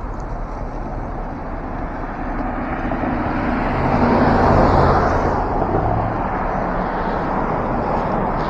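Road traffic noise heard from a moving electric bike, swelling as a motor vehicle passes about four to five seconds in, then easing off.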